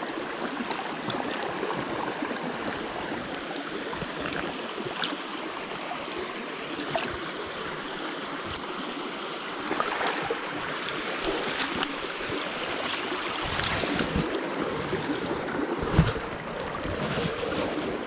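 Creek water rushing steadily, with a few light clicks and one thump near the end.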